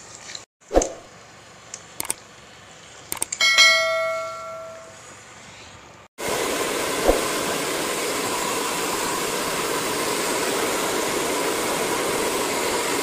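A few sharp clicks, then a bright bell ding that rings and fades over about a second and a half: a subscribe-button notification sound effect. After an abrupt cut about six seconds in, a hair dryer blows steadily and loudly.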